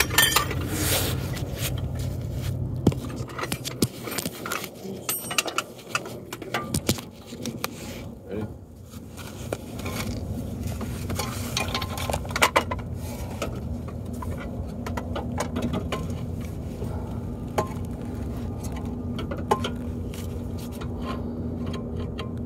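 Metal clinks, knocks and scrapes of tools and car suspension parts being handled during a control arm replacement. Sharp knocks come at irregular moments over a steady low hum.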